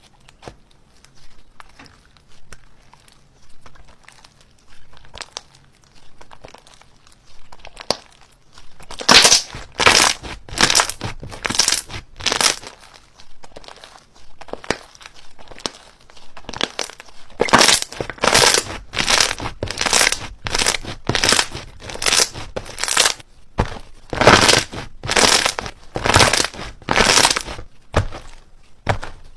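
Slime being squeezed and pressed by hand, giving crackling, crinkling sounds. They are faint for the first eight seconds or so, then come loud and repeated about once or twice a second.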